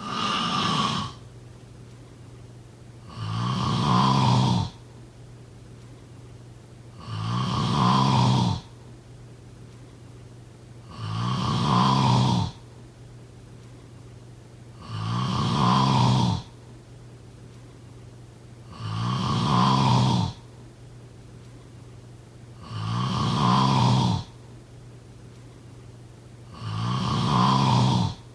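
A sleeping person snoring: eight regular snores about four seconds apart, each about a second and a half long, over a faint steady low hum.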